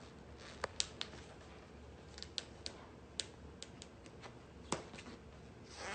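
Faint, irregular clicks and taps of a small clear plastic cup being handled as its lid is fitted and pressed on, with a short rustle near the end.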